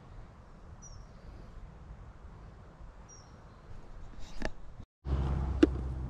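Quiet woodland ambience with a few faint, short, high bird chirps. Near the end the sound drops out for a moment and comes back louder, with a low steady hum and a sharp click.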